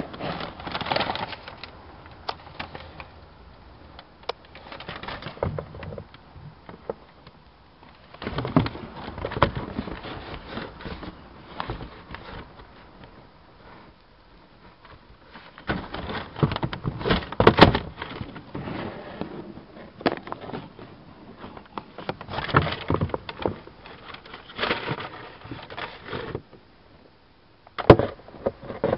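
Handling noise from a football boot box and its packaging: irregular rustling, crackling and knocks in spells of a few seconds, with short pauses between them.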